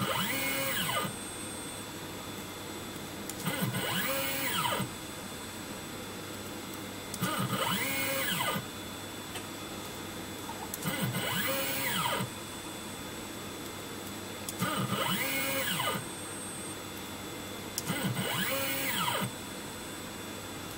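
The motors of a JLW T1 CNC mill drive its X axis back and forth over 5 mm in six short moves, roughly every three and a half seconds. Each move is a whine that rises in pitch as the axis speeds up and falls as it slows to a stop. A steady hum continues between moves.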